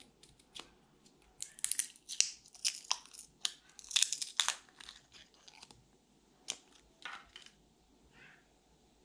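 Purple plastic shrink wrap being cut with a hobby knife and peeled off a cylindrical lithium-ion battery cell: a run of sharp crackling, tearing snaps, loudest in the first half and dying away about seven seconds in.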